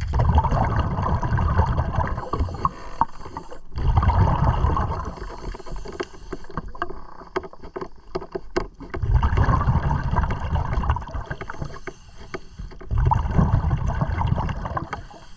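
Pneumatic air tool running underwater in several bursts of a few seconds, with quieter pauses between them.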